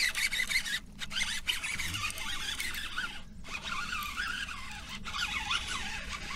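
Fishing reel being cranked steadily, winding in a pike hooked on a buzzbait, with a continuous scratchy, ratcheting whir that drops out briefly twice.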